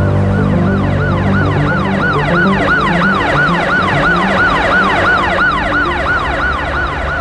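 Ambulance siren in a fast yelp, its pitch rising and falling about three times a second, with low background music underneath.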